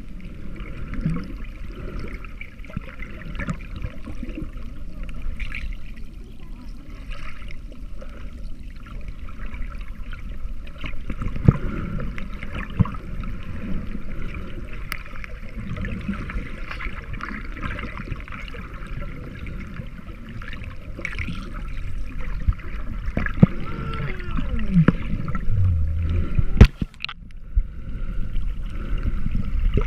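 Water sloshing and gurgling, heard with the microphone underwater as swimmers kick with fins, with a few sharp knocks, the loudest near the end.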